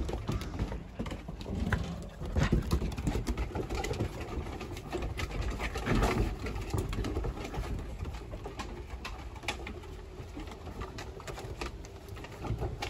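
Young shepherd-husky mix puppies play-fighting on a wooden deck: claws clicking and paws scrabbling on the boards, with low play growls. It is loudest around two and six seconds in.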